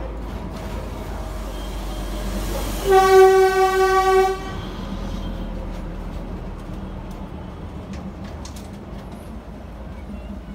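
Darjeeling Himalayan Railway toy train sounding one horn blast, about a second and a half long, about three seconds in, over the steady rumble of the train running.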